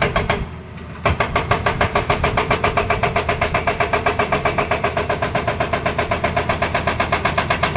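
Hydraulic rock breaker on a Tata Hitachi excavator hammering in a rapid, even rhythm. It stops briefly near the start and starts hammering again about a second in.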